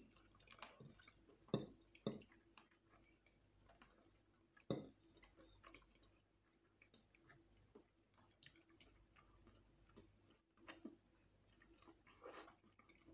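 Faint chewing of fried chicken and spaghetti, with a few short sharp clicks and smacks scattered through, the loudest about a second and a half, two seconds and nearly five seconds in.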